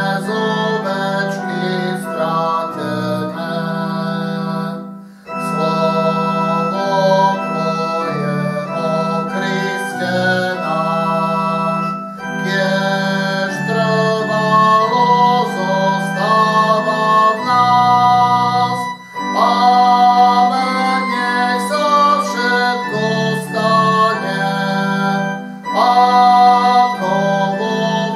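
A Lutheran hymn played on an organ sound from an electronic keyboard, with voices singing along. Sustained chords move in phrases of about six or seven seconds, each line separated by a brief pause.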